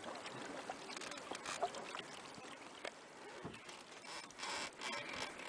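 Canoe being paddled on a calm lake: the paddle dips, splashes and drips in irregular strokes.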